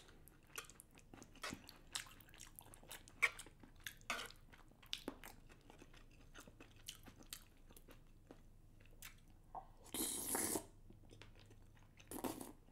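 Close-up mouth sounds of eating chewy rice cakes in a thick sauce: soft wet clicks and smacks of chewing, with a louder wet burst about ten seconds in and another near the end.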